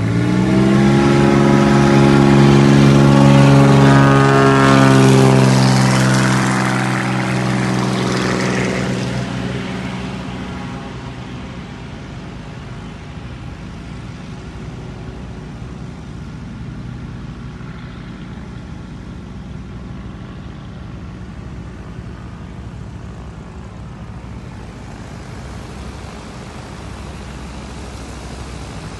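Light propeller airplane's piston engine at full takeoff power, swelling loud as the plane goes past, its pitch dropping slightly, then fading away over about ten seconds. A quieter, steady engine drone continues after that.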